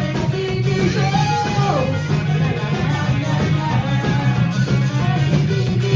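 Amateur rock band playing a Japanese rock song live, with electric guitar, bass and drums and a wavering melody line over a strong, steady low end.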